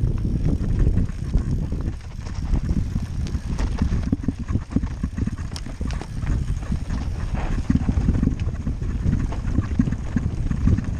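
Mountain bike descending a rough dirt singletrack, heard from the rider's helmet camera: wind buffeting the microphone and tyre rumble, with many small clicks and rattles as the bike runs over the bumpy trail.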